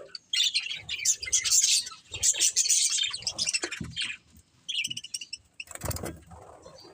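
Budgerigars chattering in fast bursts of high chirps, easing off after about three seconds, with a brief bump about six seconds in.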